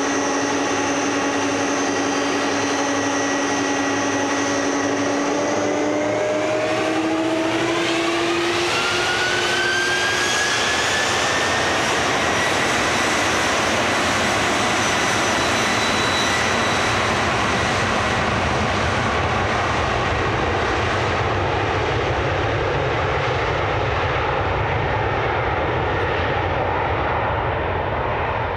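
Delta Boeing 767's twin jet engines spooling up to takeoff thrust: a whine rises in pitch over several seconds, then settles into a steady jet roar as the aircraft accelerates down the runway, fading a little near the end.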